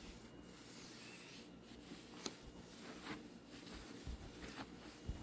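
Faint rustling and handling of oily wrapping paper and packaging while a new table saw is unpacked, with a few scattered light clicks and a couple of soft low thumps.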